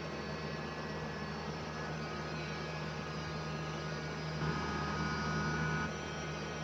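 Small battery rotary tool (HARDELL 3.7 V cordless mini grinder) running steadily with a constant motor whine. It gets slightly louder and gains a higher tone for about a second and a half past the middle.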